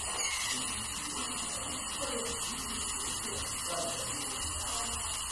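Brazing torch flame hissing steadily while copper tubing is brazed onto the ports of a refrigerator compressor.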